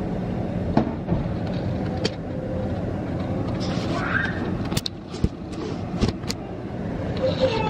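Steady kitchen noise with a low, fan-like hum, broken by several sharp clicks and taps of cooking utensils at irregular moments.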